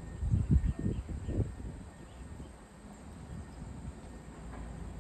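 Outdoor ambience: a low rumble that swells in a few irregular gusts during the first second and a half, then settles to a steady low background.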